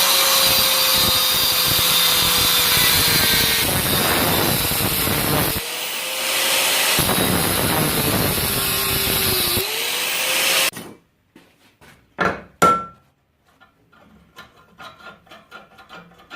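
Angle grinder cutting through the MIG tack welds that hold two steel tong blanks together, its pitch sagging each time the disc bites into the steel, with two short lulls. It stops suddenly about eleven seconds in, followed by two sharp ringing metal clanks and then faint light clinks of steel.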